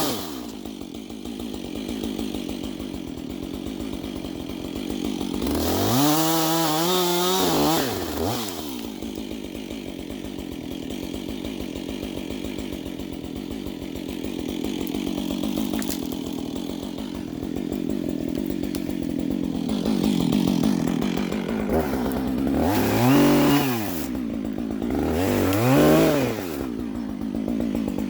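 Husqvarna 555 two-stroke chainsaw idling, revved up to full speed three times while cutting brush: one long burst of about three seconds, then two shorter ones close together near the end, each time the pitch climbing and dropping back to idle.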